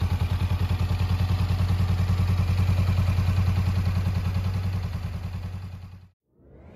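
Honda 400X's 399 cc parallel-twin engine idling with a steady, even pulse. It fades away about five seconds in.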